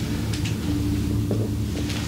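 Steady low hum holding one even tone, with a few short clicks over it.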